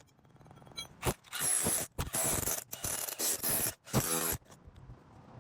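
Small electric jackhammer breaking up the court's surface and asphalt, run in about four short bursts of rapid hammering with brief pauses between.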